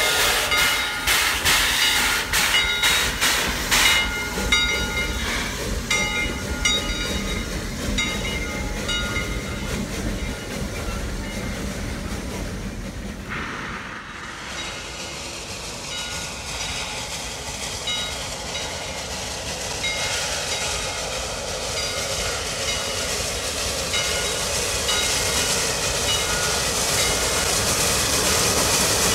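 Steam locomotive working, with quick even exhaust beats for the first four seconds, then a steady hiss and rumble with short high-pitched tones coming and going. The sound changes abruptly about 13 seconds in and runs on as a steady hiss.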